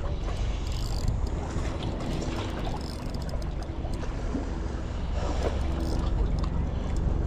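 Wind rumbling on the camera microphone, with faint ticking and a brief whirring hum from a spinning reel being cranked against a hooked fish.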